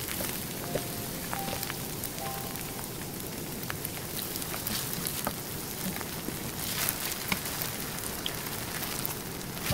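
Starch-coated sweet potato sticks frying in a little cooking oil in a pan: a steady sizzling hiss with scattered small pops and crackles.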